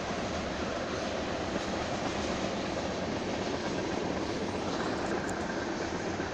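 Long BNSF freight train of covered hopper cars rolling past, a steady continuous rumble of wheels on rail.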